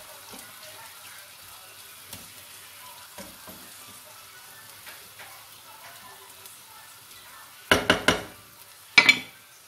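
Wooden spoon stirring asparagus and onions in a frying pan, with a faint sizzle and soft scraping. Near the end, a quick cluster of loud knocks, then one more about a second later, as the spoon is knocked against the pan and set down on a plate.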